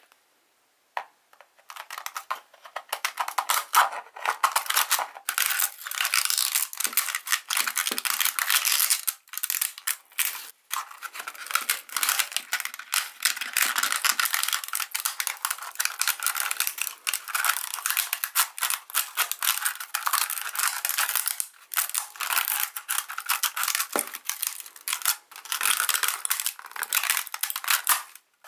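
Hand sanding of a 3D-printed plastic kalimba body around its sound hole: sandpaper scraping back and forth on the plastic in quick continuous strokes, after a short pause about a second in.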